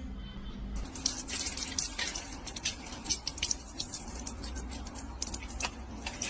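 Irregular light ticks and drip-like clicks over a faint low hum.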